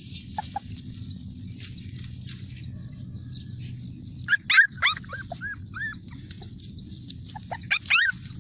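Bulldog puppies yelping in two short bouts of high-pitched, rising-and-falling cries, the first about four seconds in and the second near the end.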